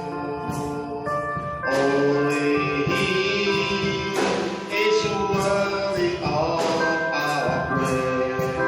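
Church worship music: sustained keyboard-style chords over a steady beat of percussion hits, with a voice singing along in the middle.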